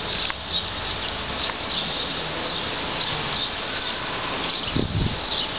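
Gusty wind blowing steadily, with low rumbling buffets on the microphone a little before the end. Small birds chirp repeatedly over it.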